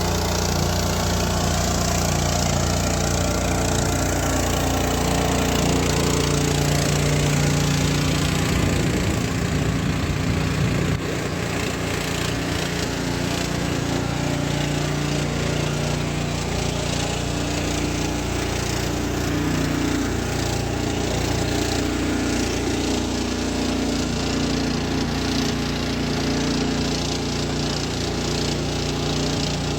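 Small engine running steadily, with a slight drop in level about eleven seconds in.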